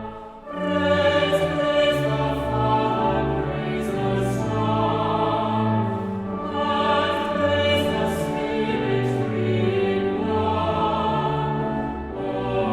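Choir singing a hymn over a sustained low accompaniment; after a brief break at the very start, the singing resumes about half a second in.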